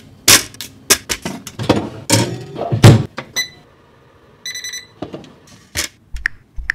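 Kitchen handling knocks and clunks as bananas go onto a metal sheet pan and into a countertop oven, then the oven's electronic control panel beeps: a short beep, then a longer one about a second later, as it is set to bake. A few light taps follow near the end.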